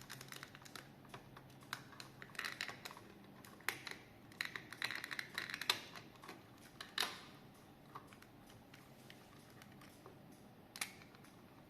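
Plastic case clips of a quartz cuckoo-clock movement being pried open: a faint run of small irregular plastic clicks and scrapes, with a few sharper snaps, one about seven seconds in and one near the end.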